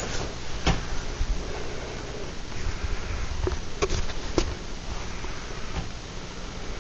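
A few sharp clicks and knocks, one about a second in and two close together near the middle, over a steady hiss and low hum.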